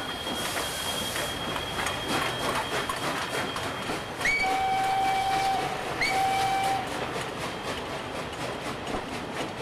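SNCF 141 R steam locomotive's American-made whistle blown twice, a long blast and then a shorter one, over the running beat and rattle of the locomotive and its freight wagons.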